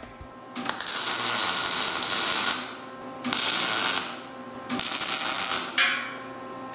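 MIG welder arcing on steel square tubing, in three bursts of harsh hissing noise: one of about two seconds, then two shorter ones, likely tack welds.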